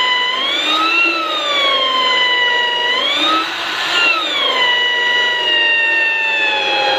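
Electric hand drill, a Doliz BA670 impact drill, running with a loud motor whine whose pitch glides up and down as the speed changes. The whine dips and rises sharply about three to four seconds in, with a rougher, noisier patch.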